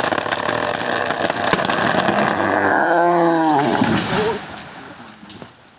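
Dense crackling and splintering of wood as a large tree is cut down, with a short tone that rises and falls about three seconds in, then dying away after about four seconds.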